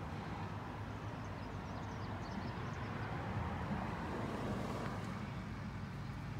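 Steady low outdoor rumble, with a few faint high chirps about two to four seconds in.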